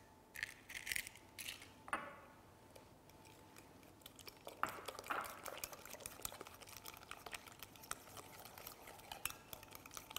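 A metal spoon beats eggs into a thick, mayonnaise-like batter in a glass bowl, clinking against the glass. There is a single ringing clink about two seconds in, and from about four seconds in a steady run of quick light clicks as the stirring picks up.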